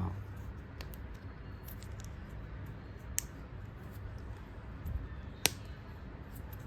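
Plastic toy train track pieces being handled and fitted together: a few scattered sharp clicks, the loudest about five and a half seconds in, over a low steady hum.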